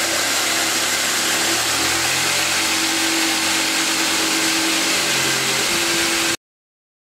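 Jigsaw running with its blade cutting into a plywood board, a loud steady buzz whose pitch shifts slightly a couple of times, then stops abruptly near the end.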